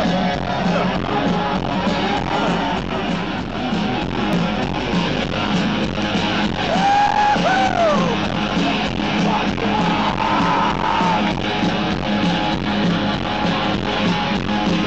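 Live hard rock band played through a large festival sound system and recorded from within the crowd: electric guitar over a steady drum beat, with voices yelling.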